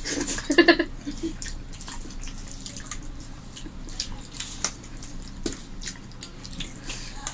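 Wet eating sounds of rice and curry being mixed by hand and chewed: scattered small clicks and squelches.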